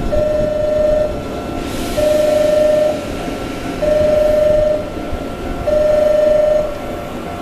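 Station platform warning tone for a train about to pass through: a single electronic tone about a second long, sounding four times at roughly two-second intervals over a fainter steady higher tone.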